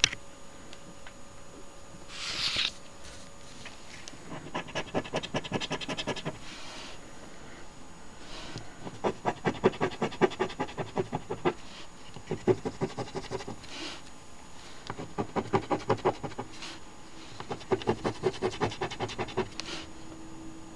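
Coin scratching the coating off a paper scratch-off lottery ticket in quick back-and-forth strokes. The scratching comes in about five bursts of a second or two each, with short pauses between them.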